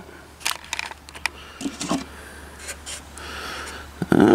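Handling noise from a camera being moved on a stick: scattered light clicks, knocks and rubbing. It ends with a short, louder sound falling in pitch.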